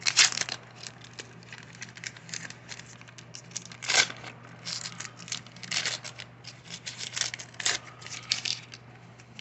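A wax-paper pack of 1984 Fleer baseball cards being torn open and crinkled by hand: a run of short ripping and rustling strokes, loudest near the start and about four seconds in.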